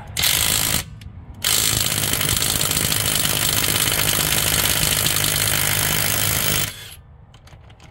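Cordless impact wrench loosening a wheel's lug nut: a short burst, a brief pause, then about five seconds of steady hammering run that cuts off near the end.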